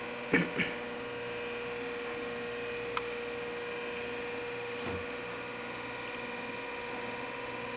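Steady electrical hum with a few faint high whines, with a couple of brief sounds just after the start, a sharp tick about three seconds in and a soft thump near five seconds.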